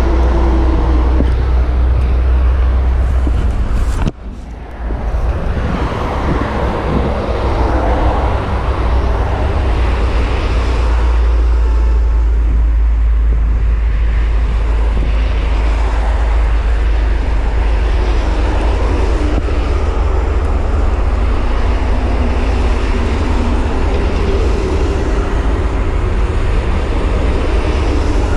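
Steady rumble of highway traffic, cars and heavy trucks passing at speed, with a brief dip in loudness about four seconds in.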